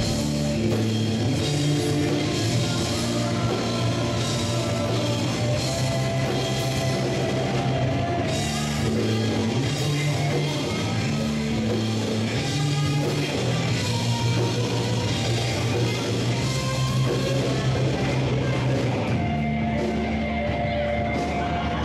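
Rock band playing, with drums, bass and electric guitar holding long, changing low chords.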